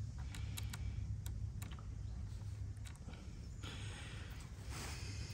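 Faint, scattered small clicks of a plastic clamp, nut and bolt being handled and fitted onto a bivvy's metal frame poles, with a couple of brief rustles near the end.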